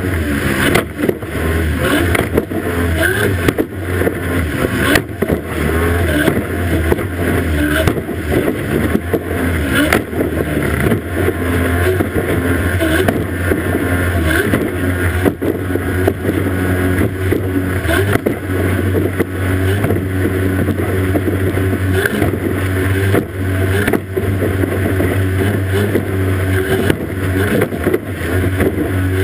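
Racing outboard engine on a powerboat running steadily at high revs, under a constant rush of spray and water, with frequent irregular thumps as the hull strikes the waves.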